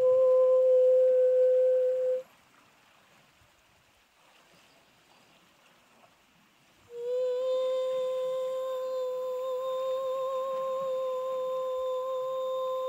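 A voice humming one steady high note. It breaks off about two seconds in and, after a few seconds of near silence, comes back with a slight slide up into the note and a brief waver partway through.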